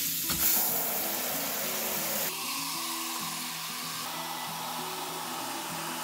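Handheld shower head spraying water into a plastic bucket of laundry detergent, a steady hiss of falling jets as the suds foam up.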